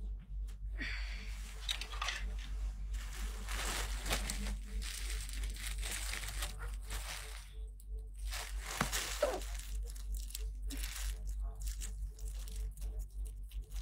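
Irregular rustling and crinkling with scattered small crackles as something is handled close by, over a low steady hum.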